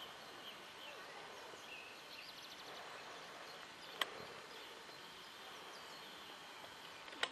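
Faint outdoor ambience with scattered small bird chirps and a quick trill about two and a half seconds in. A sharp click comes about four seconds in and another near the end, where the camcorder recording is cut.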